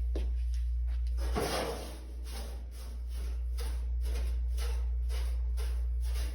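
Clothes dryer running: a steady low motor hum with a regular knocking about three times a second, and a louder scrape about a second and a half in.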